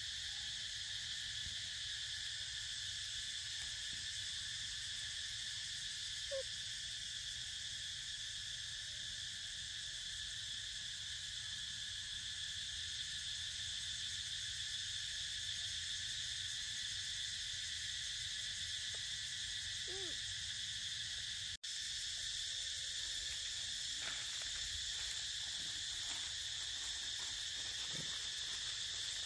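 Steady insect chorus drone in tropical woodland, with a few faint short calls now and then; the sound cuts out for an instant about two-thirds of the way through.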